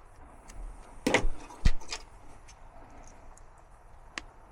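A few sharp clicks and knocks of hardware being handled at a furnace, with a loud dull thump about a second and a half in, then scattered light ticks and one sharper click near the end.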